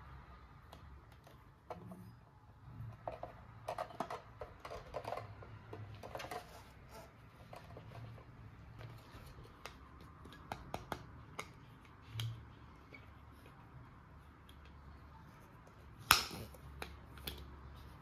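Scattered light clicks and taps of small plastic parts being handled, with one sharper, louder click about sixteen seconds in.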